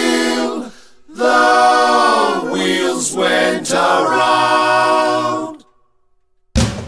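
Voices singing unaccompanied in harmony, in two phrases with a short break between. The singing stops about five and a half seconds in, and after a second of silence a band comes in just at the end.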